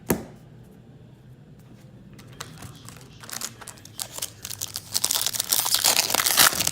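A sharp tap, then a 2016 Topps baseball card pack's foil wrapper being torn open and crinkled by hand, the crinkling building to its loudest over the last couple of seconds.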